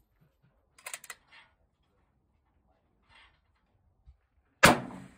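A single rifle shot about three-quarters of the way through, loud and sharp with a short ringing decay, preceded about a second in by a few faint clicks.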